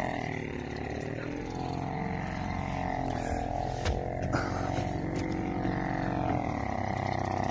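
Old British Seagull two-stroke outboard motor running steadily on a small boat out on the water, its pitch sinking about a second in and climbing again near the end as the boat circles.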